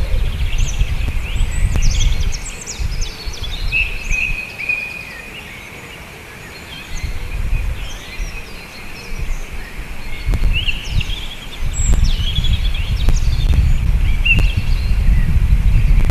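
Low, uneven rumble that swells and fades, dropping away for a couple of seconds near the middle and building again after that, under songbirds chirping and trilling.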